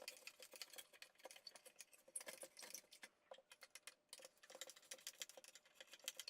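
Faint, irregular light clicks and rattles of small tools and parts being handled during work at a bench.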